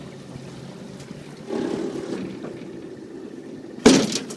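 Boat motor running with a steady hum that grows louder about a second and a half in, then a single sudden loud bang near the end.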